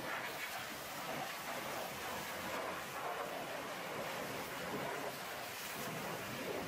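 Pressure washer wand blasting a high-pressure water jet onto a dump truck's chassis and metal fuel tank: a steady hiss of spray.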